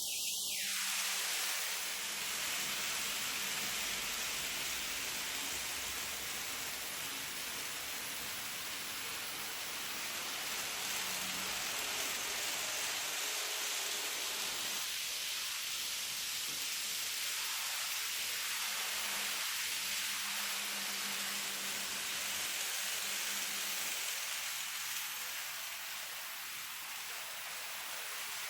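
N gauge model train running on the layout track: a steady, even hiss of small wheels on rail with a faint motor hum that comes and goes.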